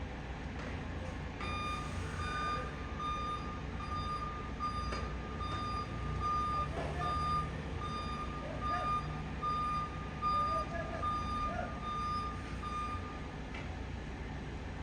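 Reversing alarm on heavy construction equipment beeping steadily at one pitch over a low engine rumble. The beeping starts about a second and a half in and stops near the end.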